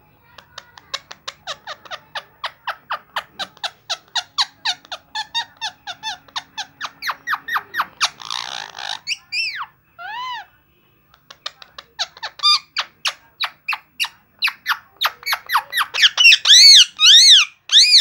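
Indian ringneck parakeet chattering in rapid short chirps, about five a second. A few arched squawk-like calls follow, getting louder near the end.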